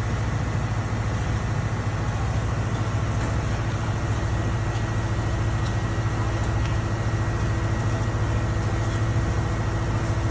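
A large engine running steadily at idle: an unbroken low hum with a thin, steady high whine over it.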